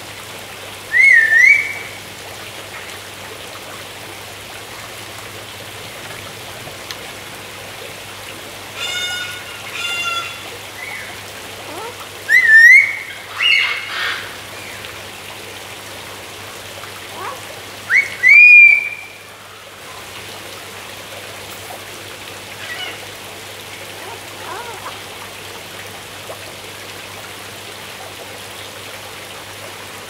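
Palm cockatoo whistling: three loud whistles that dip and then glide upward, about a second in, near the middle and about two-thirds through, with a few shorter, harsher calls between them.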